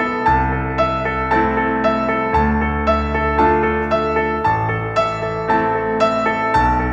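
Background music: gentle piano-led instrumental with notes struck about twice a second over slowly changing bass chords.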